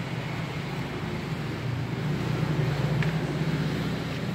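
Steady low rumble of a running engine over background noise. It grows a little louder a little past the middle, with one light click about three seconds in.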